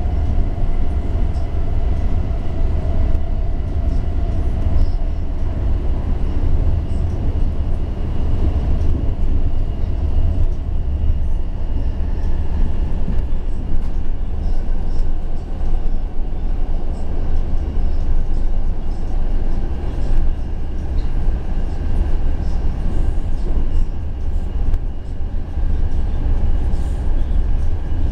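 Washington Metrorail car running at speed, heard from inside: a steady heavy low rumble of wheels on rail, with thin steady whines above it, one fading out about a third of the way through as another comes in.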